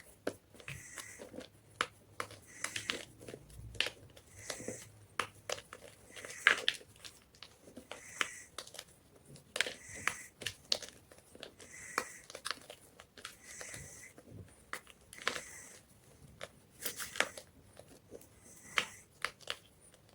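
White gym chalk being crunched, with sharp crackling snaps and gritty crumbling bursts repeating every second or two.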